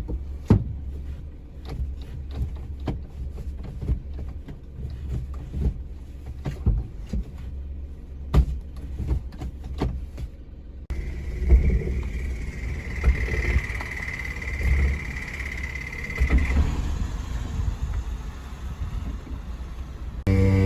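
Suzuki Every kei van's drivetrain making an abnormal noise: a low rumble with irregular sharp knocks, then, about halfway through, a steady high whine over the rumble for several seconds. The uploader's tags point to a broken bearing in the transmission or differential.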